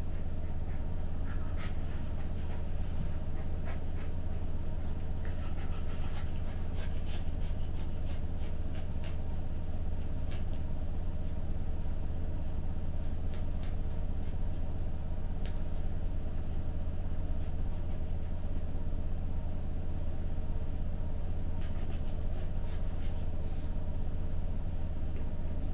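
Samoyed puppy panting softly, with faint rustles of fur being stroked, over a steady low hum.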